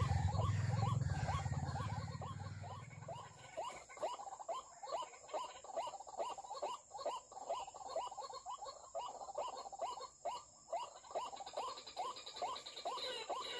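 White-breasted waterhen (ruak-ruak) calls: short notes repeated rapidly, about three a second. A low rumble fades out over the first three seconds or so.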